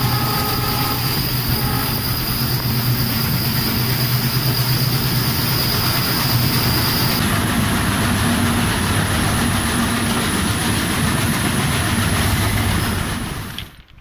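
Passenger train running, heard from an open coach doorway: a steady rumble of wheels on the rails and coach running noise. It fades out near the end.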